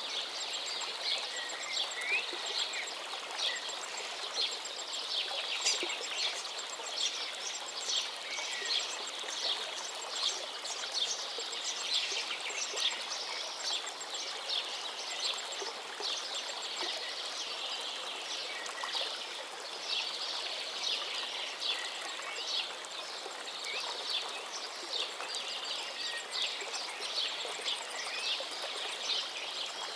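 Many birds chirping and twittering in a dense, continuous chorus, over a steady outdoor hiss.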